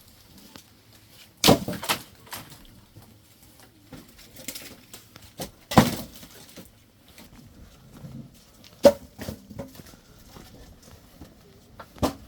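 Split firewood logs knocking together as they are dropped or stacked: four sharp wooden clunks spread a few seconds apart, with smaller knocks between them.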